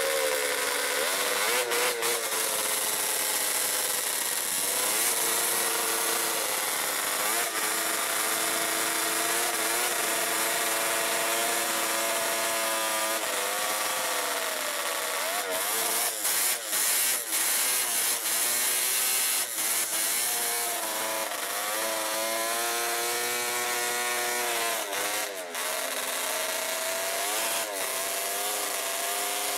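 Snowmobile engine held at high revs for a burnout, its track spinning on the pavement with a steady hiss, the engine pitch wavering up and down.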